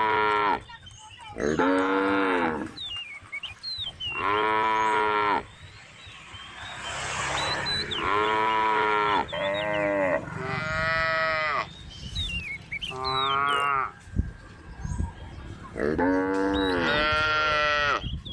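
Cows mooing, one call after another: about nine moos of a second or so each, at different pitches and some running straight into the next, as several cows call to each other.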